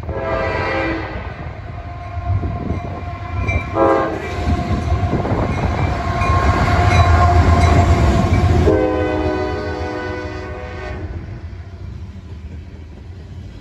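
CSX freight locomotives sounding their air horn for the grade crossing: a blast at the start, a short one about four seconds in, then a long one whose pitch drops as the locomotives pass. The diesel engines rumble loudest as they go by. After that, the tank cars roll past with wheel clatter on the rails.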